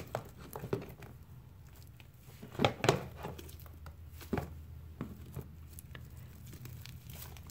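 Sticky fluffy slime (glue, shaving cream and borax) squelching and smacking as hands knead it and scrape it up in a plastic tub, in scattered irregular squishes, the loudest pair just under three seconds in. The slime is still sticky, not yet fully set.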